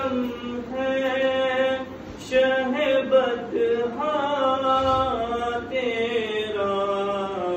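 A young man's solo voice chanting a devotional recitation with no accompaniment, in long held notes that slide up and down between short breaths.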